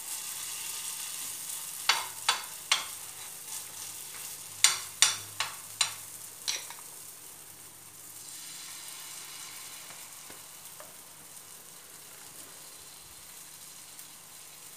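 Oil sizzling steadily in a frying pan as spoonfuls of potato-and-egg fritter batter shallow-fry. A quick run of about eight sharp spoon clinks comes between about two and seven seconds in, louder than the sizzle.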